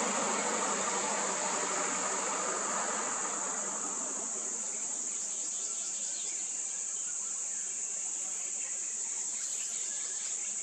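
Steady high-pitched drone of insects in the roadside scrub. A vehicle's rumble fades away over the first few seconds, and faint short chirps come in later.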